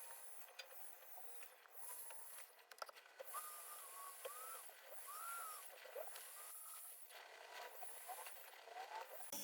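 Faint high-speed rotary tool working on sterling silver, its pitch dipping and recovering over and over as it bites into the metal, with a few light clicks.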